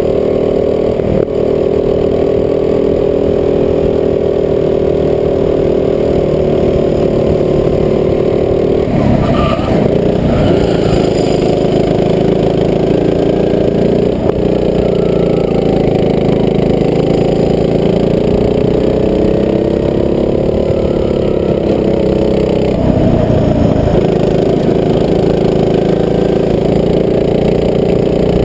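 A rental go-kart's small engine running under way throughout. Its note slowly rises and falls with the throttle, with rougher breaks in the sound about nine seconds in and again about twenty-three seconds in.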